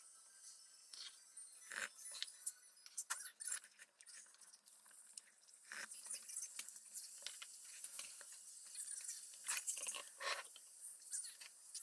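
Faint, scattered clinks and clicks of tableware, chopsticks or spoons against dishes, with chewing and eating sounds during a meal.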